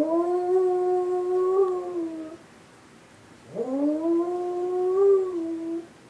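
A beagle howling twice. Each howl swoops up in pitch, holds for about two seconds with a slight waver, then sags at the end, with a short pause between. The dog is howling along with a civil defense emergency siren.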